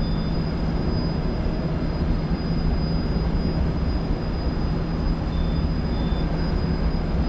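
Boat's outboard motor idling with a steady low hum under a constant rush of wind and water noise. A faint, thin, high-pitched steady whine sits on top.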